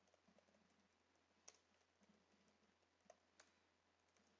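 Faint computer keyboard typing: a few scattered soft keystroke clicks over near silence.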